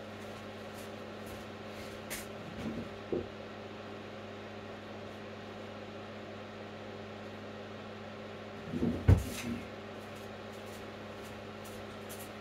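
Fume extractor's 120 mm, 230-volt mains fan running with a steady hum and airflow hiss. A few light knocks come about two to three seconds in, and a louder clatter of thumps comes about nine seconds in.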